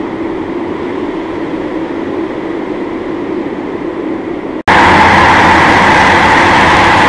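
Heavily distorted, effects-processed logo audio: a dense, noisy wash with a hum-like band in the low middle. About four and a half seconds in it cuts abruptly to a louder, brighter, harsher noise.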